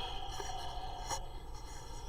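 Faint rubbing with a couple of light clicks, as of a small object being handled.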